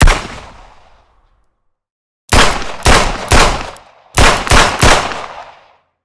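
Revolver gunshots. A single shot dies away over about a second, then come two quick strings of three shots each, the shots in each string about half a second apart.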